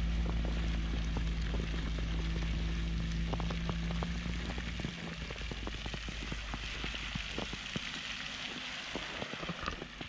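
Ram ProMaster van's engine running as the van pulls away over slushy snow, its hum dropping away about five seconds in, with crackling and crunching of wet snow throughout.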